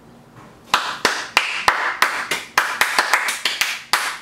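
Hands brushed and patted together in a quick run of soft claps, about three or four a second, starting under a second in: dusting food crumbs off the hands.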